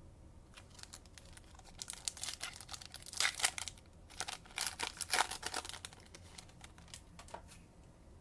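Bowman baseball card pack wrapper crinkling and tearing as the pack is ripped open, a dense run of sharp crackles loudest about three and five seconds in.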